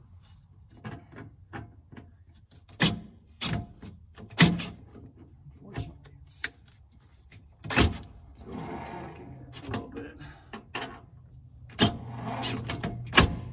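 Repeated sharp metal clicks and knocks as a spark plug socket on a cordless drill is worked onto the drive shaft of a trailer's electric landing gear, with the drill running briefly about eight seconds in and again near the end.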